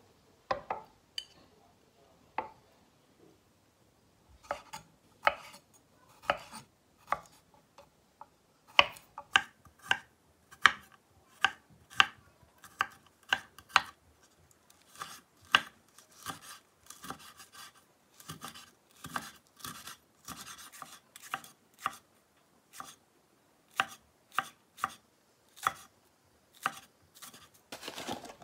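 Kitchen knife slicing garlic cloves and chili peppers on a wooden cutting board: a run of sharp knocks as the blade meets the board, uneven in timing, sparse at first and then coming one to two a second.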